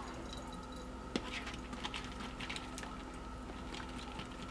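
Freshly rinsed strawberries shifting in a plastic colander as it is held and shaken over the sink, with water dripping through in faint scattered ticks and one sharper click about a second in.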